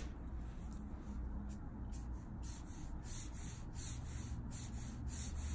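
Copic N6 neutral gray marker stroking across Bristol paper: faint repeated rubbing strokes, about two a second, over a low steady hum.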